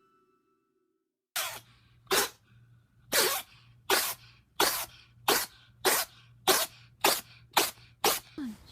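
An animal sneezing about a dozen times in a rapid fit, short sharp sneezes coming faster toward the end.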